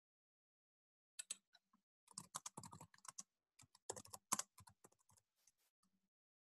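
Typing on a computer keyboard: an irregular run of quick key clicks that starts about a second in and stops shortly before the end.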